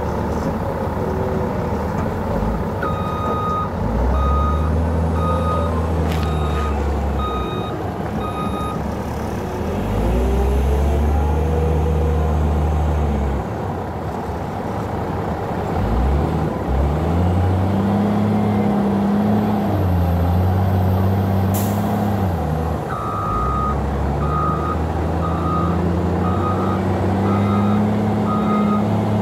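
CAT 966H wheel loader working: its diesel engine revs up and eases off in several long surges, while its reversing alarm beeps in a regular series, in two spells, as it backs away.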